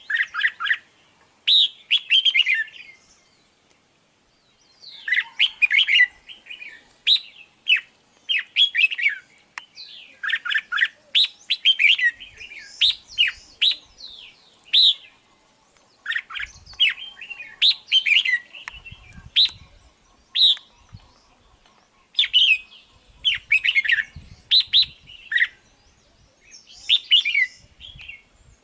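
Red-whiskered bulbul singing: short, quick phrases of chirpy whistled notes repeated with brief pauses between them, and a longer pause of about two seconds a few seconds in.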